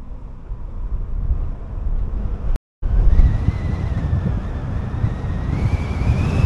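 Moving car's road and wind noise: a low rumble that grows louder, cutting out completely for a moment about two and a half seconds in. A thin whine comes in after the gap and rises in pitch near the end.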